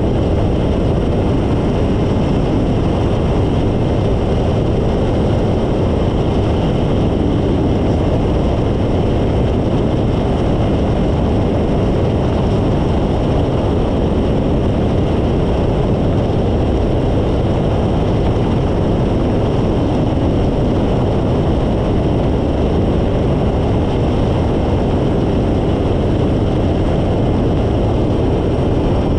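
Phantom ultralight's engine and propeller running steadily in flight, with wind rushing over the microphone.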